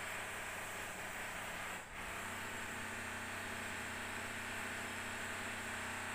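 Steady background hiss with a faint low hum, briefly dipping about two seconds in.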